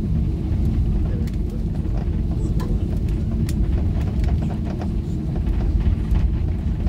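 Airliner cabin noise while taxiing: a steady low rumble of the jets at idle and the wheels rolling on the taxiway, heard from inside the cabin, with a few faint clicks.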